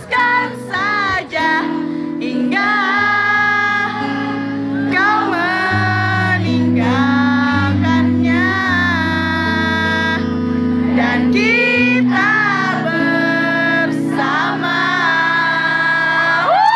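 Live band playing a slow pop song: singing over long held bass notes and guitar.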